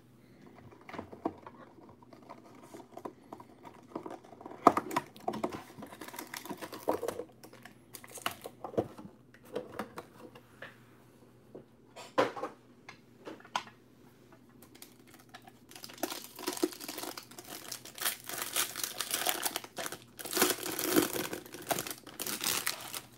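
Trading-card box and packs being handled and opened: scattered taps, clicks and rustles of cardboard and wrappers. In the last several seconds, sustained crinkling of clear plastic wrap being pulled off a wrapped stack of cards.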